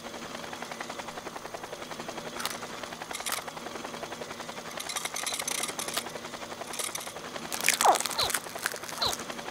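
Cartoon sound effect of small propellers whirring steadily and fast, broken by a few short cracks and, near the end, a couple of quick falling squeaks.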